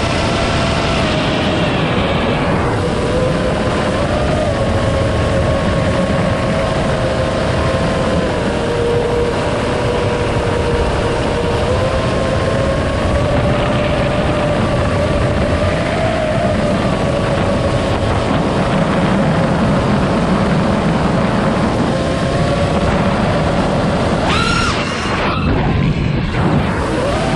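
iFlight Nazgul5 V2 five-inch FPV quadcopter's brushless motors and propellers whining at a steady, slightly wavering pitch, over rushing wind noise. Near the end a sharp throttle punch sends the whine quickly up in pitch and back down.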